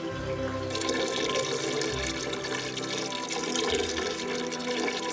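A stream of water pouring and splashing into a filled glass aquarium, starting about a second in, over background music.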